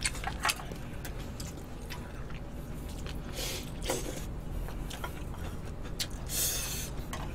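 Eating sounds at a table: scattered light clicks of chopsticks against dishes, with two short hissing mouth sounds of food being taken in, about three and a half and six and a half seconds in.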